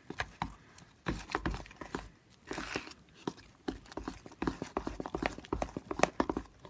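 Glue and shaving foam being stirred in a bowl: quick, irregular clicks and wet squishes as the mixing utensil knocks and scrapes against the bowl.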